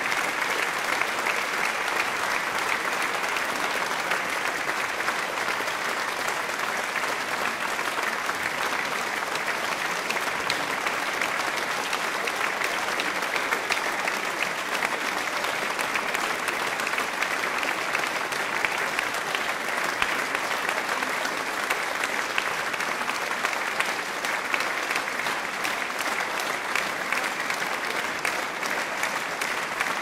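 Audience applause: a large crowd clapping densely and steadily, with no let-up or change in strength.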